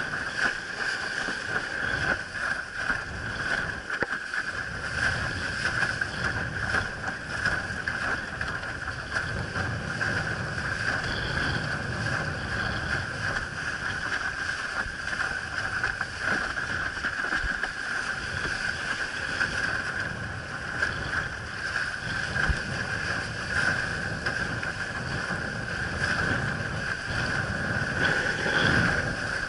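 Water rushing and splashing against a windsurf board as it sails across choppy water, with wind buffeting the microphone.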